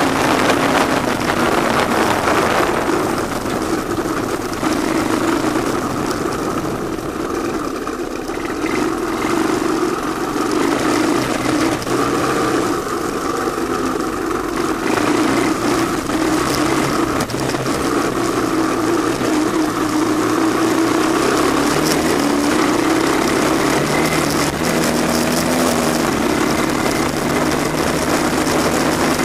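Honda ATC185S three-wheeler's single-cylinder four-stroke engine running steadily while the machine is ridden along a dirt track, easing slightly about eight seconds in.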